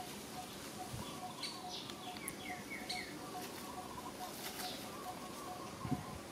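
Birds calling: a short note repeated steadily about twice a second, with a few higher chirps and a quick falling series of notes in the first half.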